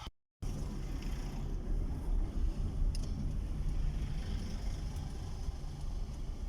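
A motor vehicle's engine running steadily with a low rumble, starting just after a brief moment of dead silence.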